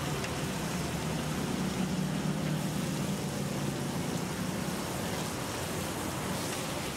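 Steaks frying on a flat-top griddle: a steady sizzling hiss over a low hum that fades about halfway through.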